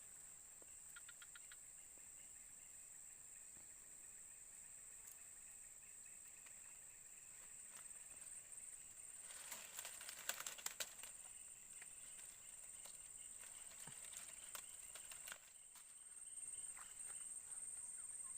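Faint swamp ambience: a steady, high insect trill, with a few sharp clicks and rustles near the middle.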